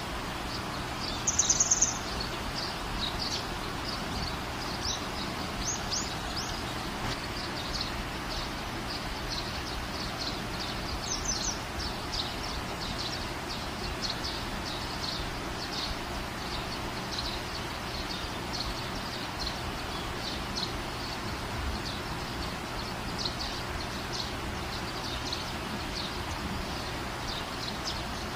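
Steady open-air background noise with small birds chirping over and over. About a second and a half in, one loud, rapid, high-pitched bird call of a few quick notes stands out above the rest.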